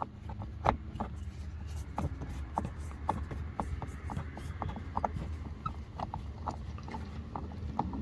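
A screwdriver working a screw out of a car's interior door panel: a run of small, irregular clicks, about two or three a second, over a low steady hum.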